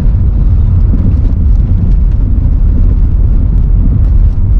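Car driving on a snow-covered road: a steady low rumble of tyre and engine noise.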